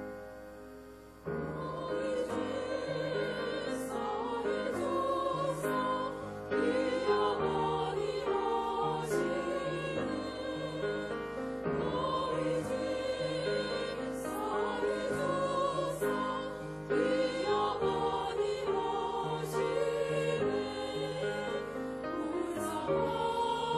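Women's choir singing a Korean hymn with piano accompaniment. The piano is heard alone at first, and the choir comes in about a second in.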